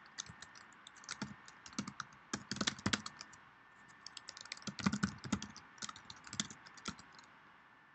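Typing on a computer keyboard: quick bursts of keystrokes with short pauses between them, stopping shortly before the end.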